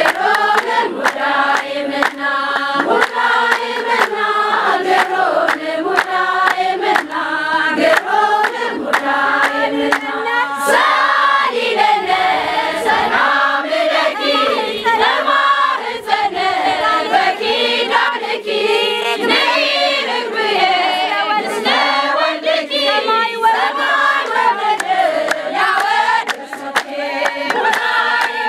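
A group of women singing an Ethiopian Orthodox hymn together in unison, with hand-clapping keeping a steady beat.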